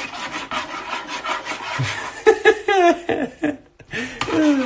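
A utensil scraping rapidly against a pan while eggs are beaten in it, a dense run of quick rasping strokes that stops about three and a half seconds in. A voice laughs briefly in between and near the end.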